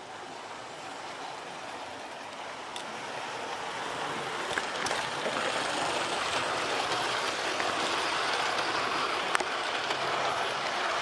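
Hornby Railroad Class 37 model locomotive running along its track hauling a rake of coaches: a steady whirring rumble of motor and wheels that grows louder over the first four seconds, with a few sharp clicks.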